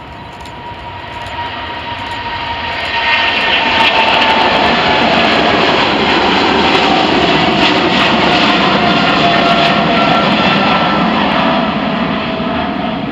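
Boeing 777's twin GE90 turbofans at takeoff power as the jet lifts off and climbs out past: a jet roar that builds over the first few seconds, stays loud through the middle and eases a little near the end, with a whining tone that slides down in pitch.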